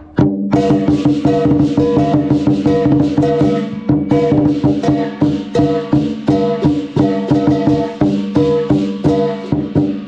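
Lion dance percussion: a big lion drum beaten in a fast, dense rhythm with crashing cymbals and a ringing gong. It sets in about half a second in and carries on steadily.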